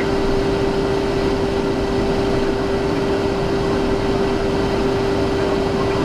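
Steady cockpit noise of a Cessna Citation XLS business jet in its climb: even rushing airflow and twin-turbofan drone, with one steady hum over it.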